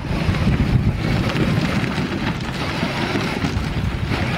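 Wind buffeting the microphone over the low rumble of a Feber battery-powered ride-on toy jeep rolling along a gravel track.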